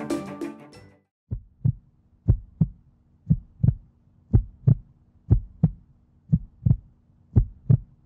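Intro music fades out in the first second. Then a heartbeat plays: paired lub-dub thumps about once a second, steady and even, over a faint steady hum.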